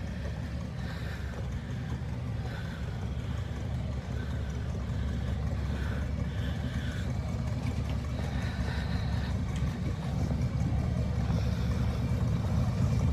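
Steady traffic rumble from a long line of cars and trucks driving slowly past, growing gradually louder toward the end.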